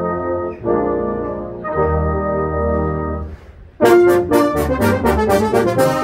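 Brass band playing a march outdoors: held brass chords for about three seconds, a brief breath of near-quiet, then the full band comes back in loud with sharp percussion strikes.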